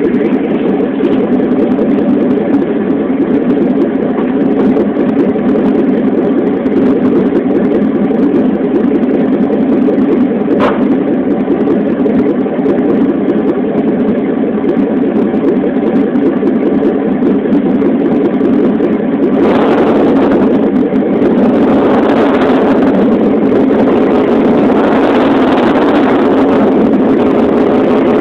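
Dodge R/T's 360 V8 running steadily, heard from underneath the vehicle. There is a single sharp click about a third of the way in. From about two-thirds of the way in, a hissing noise swells and fades several times over the engine.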